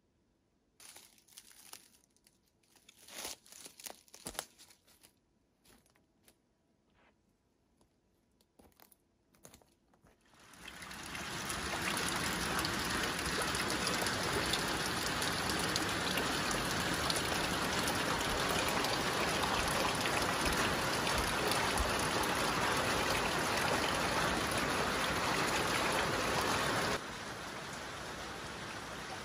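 Steady rain falling, an even hiss that fades in about ten seconds in and drops to a lower level a couple of seconds before the end. Before it there are only a few faint taps.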